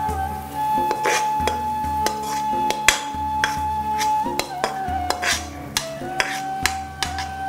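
Metal spatula scraping and clinking irregularly against a stainless-steel kadai as a thick burfi mixture is scraped out onto a steel plate. Background music with a long held note plays underneath.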